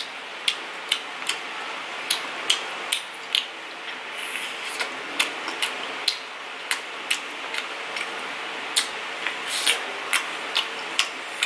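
Close-miked chewing of fried pungko-pungko street food: irregular sharp crunches and mouth clicks, two or three a second, over a steady hiss.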